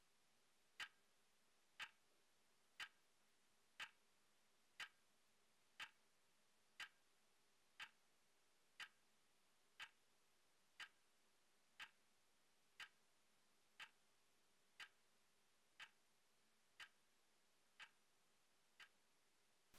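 A clock ticking steadily once a second, each tick short and sharp, over near silence. The ticks grow slightly fainter toward the end.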